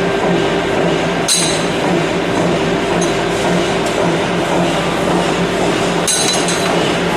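Power hammer's drive running with a steady loud hum, broken twice by a sharp metallic clink, about a second in and again near the end.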